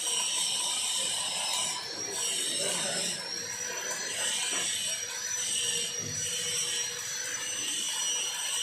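Electric welding in repeated bursts of about a second to a second and a half, with short breaks between them, over a steady high thin whine.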